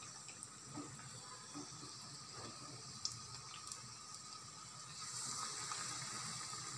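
Batter-coated pumpkin flowers deep-frying in hot oil: a steady sizzle with a few sharp pops, getting louder about five seconds in.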